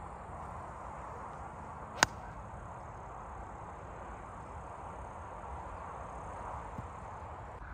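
A golf iron striking the ball off the fairway: one sharp click about two seconds in, over steady outdoor background noise.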